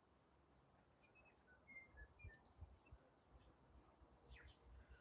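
Near silence in a garden: faint high chirps repeat about twice a second, with a few fainter, lower chirps in the first half.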